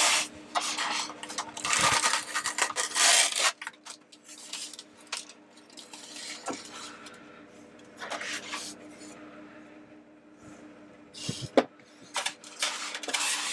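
Styrofoam packing blocks rubbing and squeaking against each other as they are pulled apart and handled, in several bursts with quieter gaps between, over a faint steady hum. A single sharp knock near the end.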